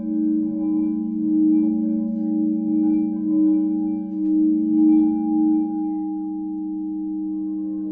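Tibetan singing bowl ringing with a few steady tones that swell and ebb in a slow pulse, then settle to a smoother, slowly fading tone near the end.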